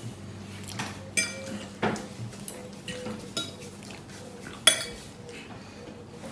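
Metal fork and spoon clinking and scraping on a plate while eating, with sharp clinks about a second in, near two seconds and near five seconds.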